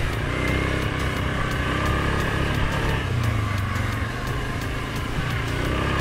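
Suzuki KingQuad 750 ATV's single-cylinder engine running steadily while riding along a dirt trail, its pitch rising and falling slightly with the throttle.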